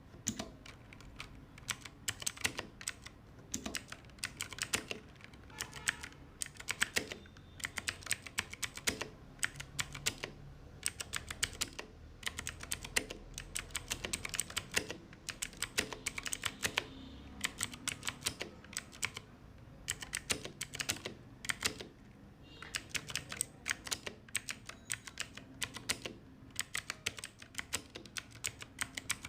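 Typing on an Ajazz AK33 mechanical keyboard with blue switches: fast runs of sharp clicky keystrokes with short pauses between bursts.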